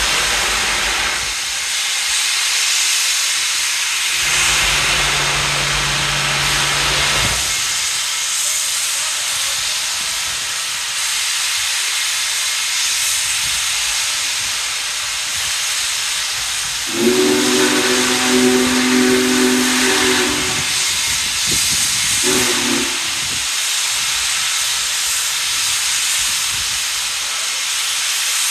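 Union Pacific 4014 Big Boy steam locomotive hissing steadily as it vents steam, then sounding its chime steam whistle as a chord of several notes: one long blast about 17 seconds in and a short one about five seconds later.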